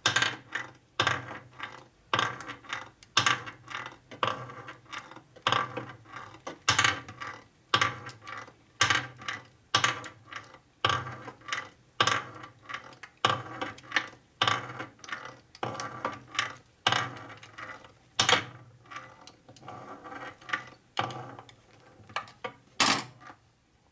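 A 1961 Harley-Davidson XLCH Sportster engine being turned over by hand with a ratchet wrench: a steady run of sharp metallic clicks, about two a second, with a louder click near the end.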